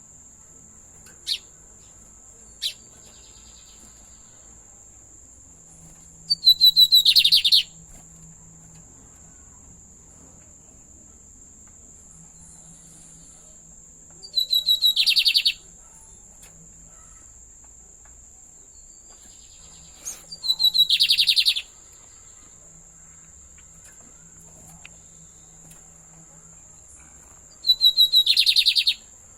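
A Sporophila seedeater singing four short songs several seconds apart, each about a second and a half of rapid repeated notes after a high opening note, with a few single chirps at the start. A steady high-pitched insect drone runs underneath.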